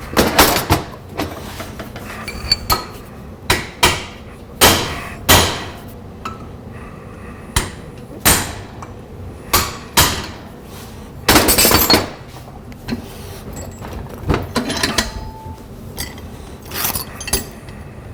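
Hammer striking a big flat chisel to cut 16-gauge sheet steel: irregular sharp metal-on-metal blows, about one to two a second with pauses, and a longer rough stretch a little past halfway.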